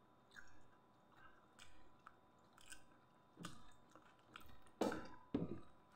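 Person chewing and biting food close to the microphone: short, irregular chewing sounds about once a second, louder near the end.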